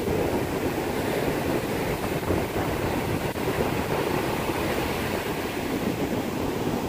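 Steady rush of surf breaking and washing up a sandy beach, with wind buffeting the microphone.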